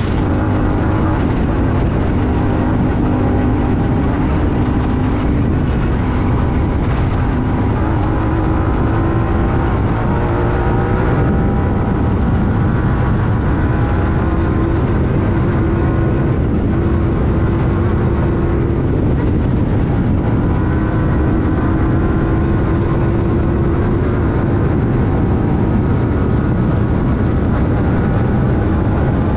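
Honda Talon 1000R side-by-side's parallel-twin engine running hard at speed, heard from on board, its note holding steady with slight rises and dips in pitch over a constant rushing noise.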